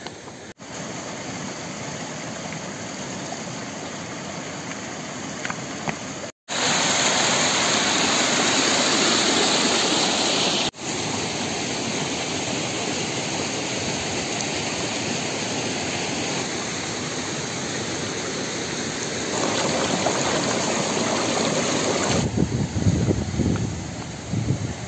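Steady rushing of a fast mountain stream, the glacial nala, as an even noise whose loudness jumps at several abrupt cuts. It is loudest for a few seconds about a quarter of the way in, and there are some low rumbles near the end.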